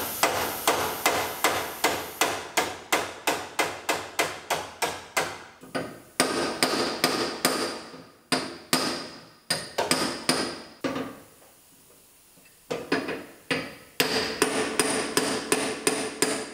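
Hammer blows on the steel front frame rail of a 2015 GMC Terrain held under tension by a frame-rack pull, each strike ringing. A fast run of blows slows to spaced strikes, pauses for about two seconds, then starts again. The hammering is stress relieving, taking the tension out of the pulled metal so it doesn't spring back.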